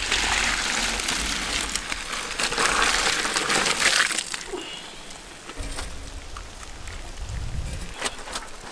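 Cooking water pouring out of a large pot of boiled spaghetti as it is drained: a loud splashing gush that starts suddenly and lasts about four seconds, then a quieter stream of water splashing over the noodles.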